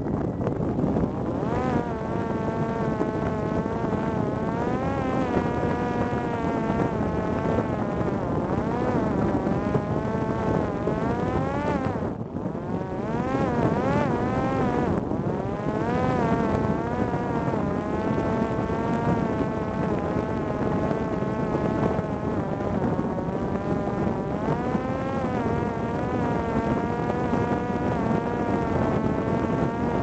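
Parrot Disco drone's electric propeller motor whining in flight, its pitch wavering up and down with the throttle, over a steady rush of air. The whine briefly falls away about twelve seconds in and picks up again a few seconds later.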